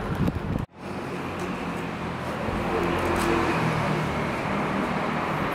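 Steady outdoor background noise with faint voices in it, slowly growing louder; the sound drops out completely for a moment under a second in.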